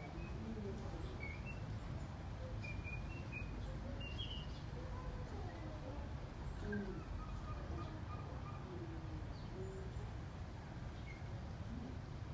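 Quiet outdoor ambience: a steady low rumble with faint, scattered high bird chirps and soft, low gliding calls in the background.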